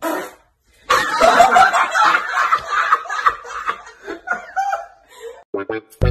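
Hearty human laughter, starting about a second in and tapering off over the next few seconds.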